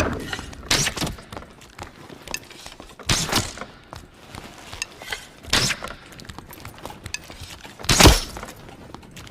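Four loud crashing impacts about two and a half seconds apart, the last the loudest, with small clattering knocks in between.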